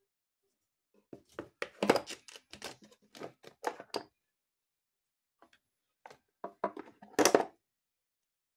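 Cosmetic jars, tubes and bottles clattering and knocking against each other as a hand rummages through a drawer of skincare products, in two bursts of quick knocks with a pause between.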